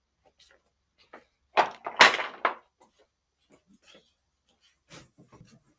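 Hard plastic cart parts being handled and set down against a cardboard box and the floor: a loud clatter of knocks about a second and a half in, then a few light knocks near the end.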